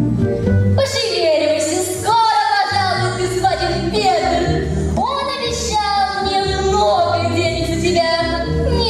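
A song: a woman's voice singing held, wavering notes over instrumental accompaniment with a steady bass.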